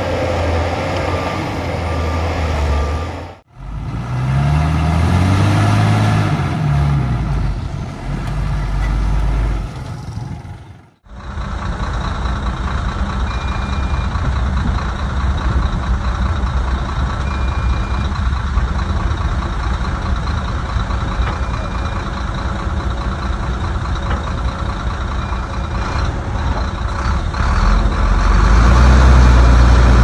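Heavy diesel engines of earthmoving machines (bulldozer and dump trucks) running, in several cut-together shots. In the first a back-up alarm beeps; in the second an engine revs up and down; then an engine runs steadily with a short high beep every four seconds or so, growing louder near the end.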